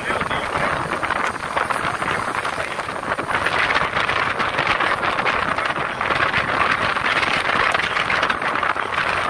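Steady rushing noise of wind on the microphone, mixed with breaking surf.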